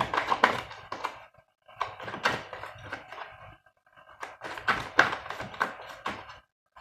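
Tarot cards being shuffled by hand: three bursts of rapid papery card clicks and flicks with short pauses between.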